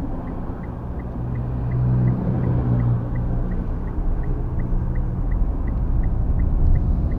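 Steady low tyre and engine rumble heard inside the cabin of a moving Mitsubishi Xpander, growing a little louder about a second in. A faint, even ticking about three times a second runs through it, fitting the turn-signal indicator as the car turns back.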